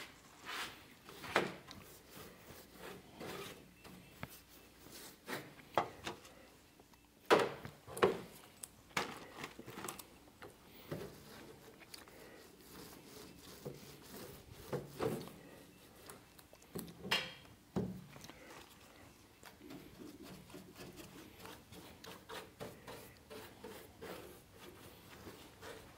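Resin being worked onto a fiberglass trunk lid by hand: rubbing and dabbing of the applicator with scattered light knocks and clacks from the plastic resin tray and tool. The loudest knocks come about seven to eight seconds in and again around seventeen to eighteen seconds in.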